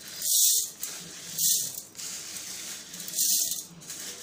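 Dry-roasted whole black urad dal grains being swept by hand off a steel plate into a mixer-grinder jar. The grains rattle and patter in three quick pours, about a second apart.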